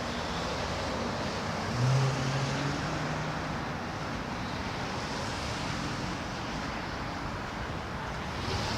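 Street traffic noise: a steady wash of cars in a jammed city street, with one vehicle's engine hum rising louder about two seconds in.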